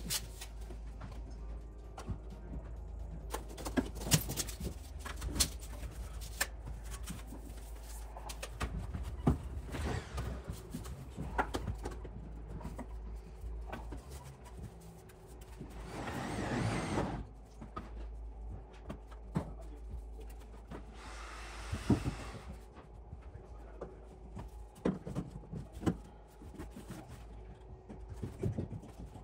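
Scattered knocks and clicks of ABS drain pipe and fittings being handled and fitted overhead, over a steady low rumble, with a short hissing scrape about halfway through.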